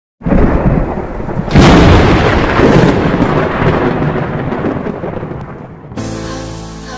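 Thunder-like rumble sound effect. It starts suddenly, has a louder crash about a second and a half in, and then slowly dies away. Music of held notes begins about six seconds in.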